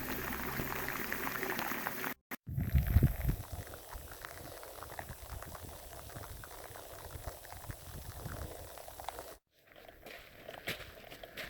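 Rain falling, many drops pattering in a steady hiss, heard in separate clips joined by abrupt cuts. A brief loud low rumble comes just after the first cut, about two and a half seconds in.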